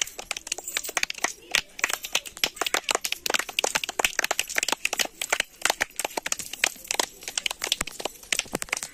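Small pebbles clicking and tapping together as they are passed between many hands, a dense, irregular run of sharp clicks.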